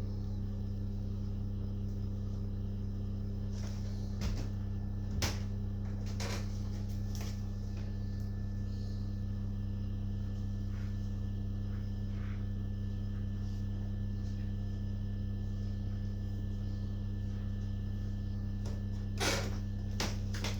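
Steady low hum with a few sharp clicks and knocks on top, the loudest about five seconds in and again near the end.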